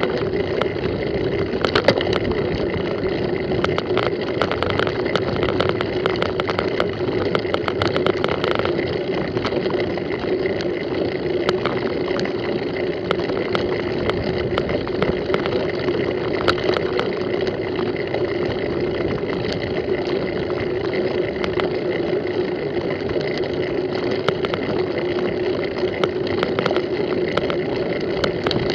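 Mountain bike rolling over a bumpy grass and dirt track, heard through a camera mounted on the bike: a steady rumble of tyres and riding noise with frequent small clicks and rattles from the bumps.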